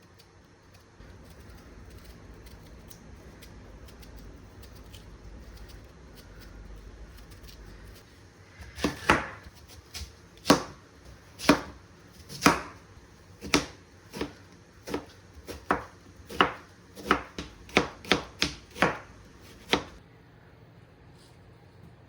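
Kitchen knife chopping on a cutting board: about twenty sharp, uneven strikes, coming faster near the end. Before the chopping starts there are several seconds of a low steady hum.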